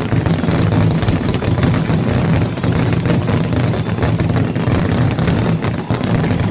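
Fireworks going off in a rapid, continuous barrage: dense crackling and popping over a steady low rumble of booms.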